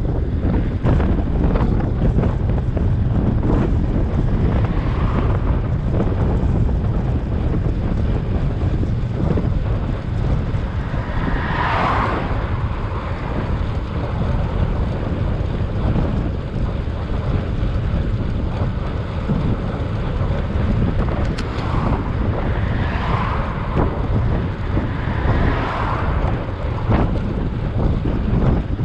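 Wind rushing over the microphone of a camera on a moving bicycle: a steady, dense low rumble of riding through the air. Short swells of higher hiss rise over it about twelve seconds in and several times near the end.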